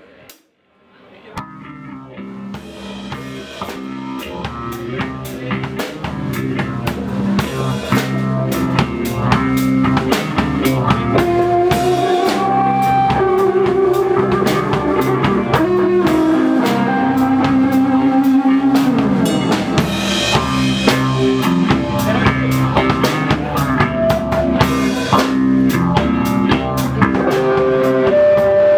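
Rock band playing live: drum kit and electric guitar over held bass notes. The music swells up from quiet over the first several seconds.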